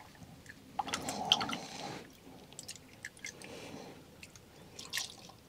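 Diesel slowly poured through a plastic funnel into an inline fuel filter to pre-fill its cartridges: faint wet trickling and squishing with small clicks from handling, loudest between about one and two seconds in.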